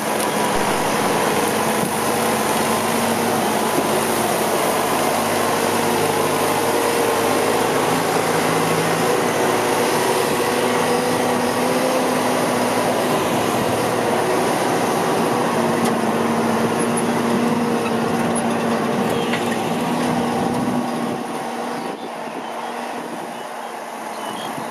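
Massey Ferguson 445 tractor's diesel engine running steadily. It gets somewhat quieter a little before the end.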